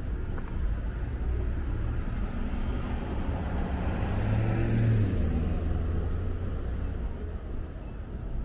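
Street traffic: a steady low rumble, with a car passing close by whose engine and tyre noise swells about four to five seconds in and then fades.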